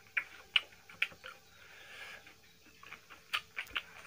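Irregular light clicks and taps of fingers and food against stainless steel plates as rice and curry are mixed and eaten by hand.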